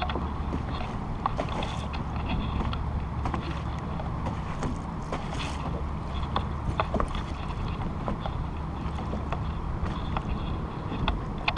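Boat's motor running steadily with a low hum, with scattered knocks and clicks from handling gear on deck.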